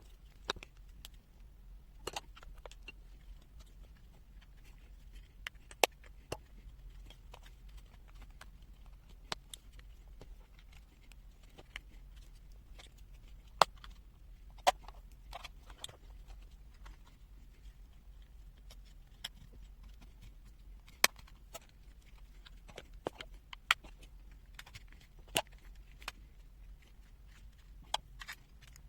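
Scattered small clicks and taps of a pocket multimeter's plastic case and a screwdriver being handled as the meter is unscrewed and opened, over a faint low hum.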